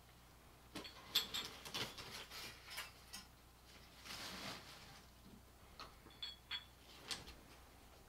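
Faint, scattered clicks and light rustling of hands handling a phone and small plastic parts, with a soft swell about four seconds in and a few short high ticks around six seconds.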